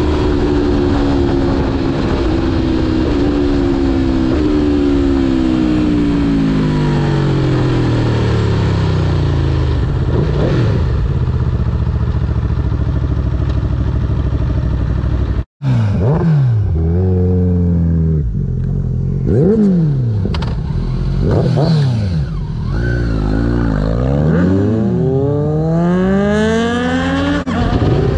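Aprilia Tuono V4 sportbike engine heard on board while riding. The revs fall slowly for about ten seconds as the bike slows. After a sudden brief break about halfway, the revs rise and fall quickly again and again.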